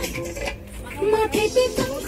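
Voices singing a song together, with a short dip in loudness about half a second in.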